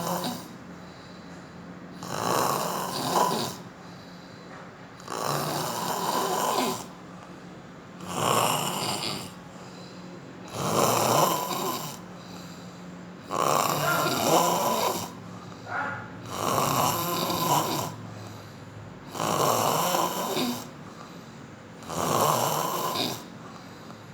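Hippopotamus snoring in its sleep, one snore roughly every three seconds, each lasting about a second and a half.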